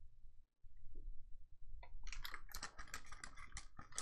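Foil wrapper of a Topps Chrome baseball card pack crinkling and tearing as it is opened by hand. The crackling starts about two seconds in as a quick, dense run of small sharp crackles.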